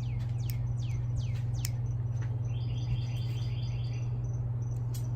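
Small birds chirping, a run of quick falling chirps with a short rapid trill in the middle, over a steady low hum.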